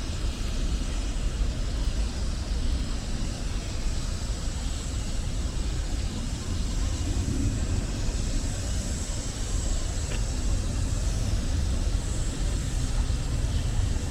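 Steady low rumble of outdoor street ambience, with no distinct events standing out.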